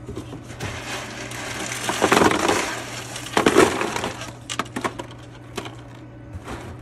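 Loose pieces of hard printer plastic rattling and clattering, like a pile of purge waste ('poop') from a multicolour 3D printer being handled or dumped. There are two loud surges, about two and three and a half seconds in, then scattered light clicks, over a steady low hum of running printers.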